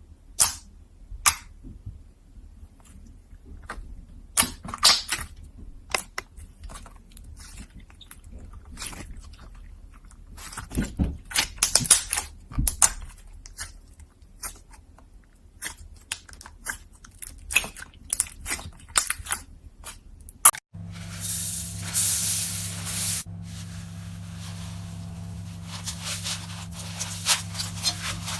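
Slime being squeezed and pressed by hand, making irregular crackling, popping clicks. About two-thirds of the way through it cuts to another slime clip with a steady electrical hum beneath the crackles.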